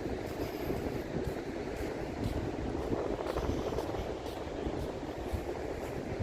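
Steady outdoor wind rumbling and buffeting on the microphone, with faint light ticks about twice a second.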